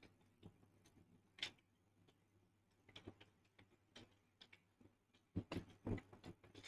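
Faint computer keyboard keys clicking: a few scattered clicks, then a quicker run of key taps as typing gets going about five seconds in.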